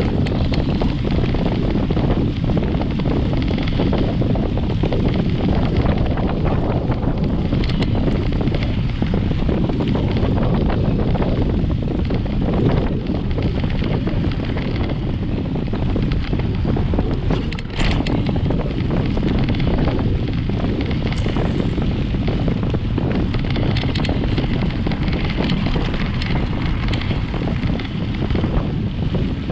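Wind buffeting the microphone of an action camera mounted low on a moving mountain bike's front fork, with the front tyre rolling over a dirt track. Steady throughout, with one short sharp knock a little past halfway.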